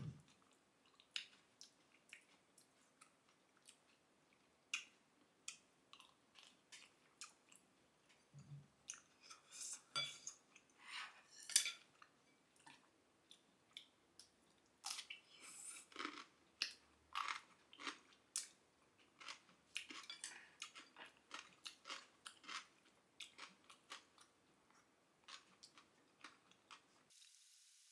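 Close-miked eating: a person chewing and biting crunchy food, a long irregular run of crisp crunches and clicks.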